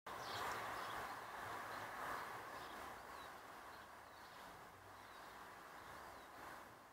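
Faint outdoor background noise with a low hum and a few short, high bird chirps scattered through it.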